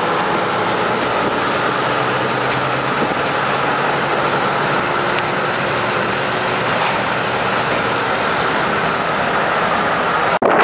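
Steady road and tyre noise with engine hum inside a car driving at highway speed. It breaks off suddenly for a moment just before the end.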